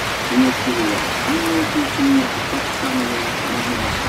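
Heavy rain pouring down in a steady, even hiss. Over it, a low, wavering voice-like sound comes and goes in short phrases.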